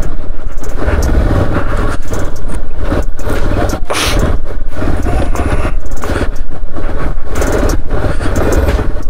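Hero XPulse 200 4V's single-cylinder engine running at low speed as the motorcycle bounces over loose stones on a rough track, with irregular knocks and clatter from the tyres and suspension hitting rock.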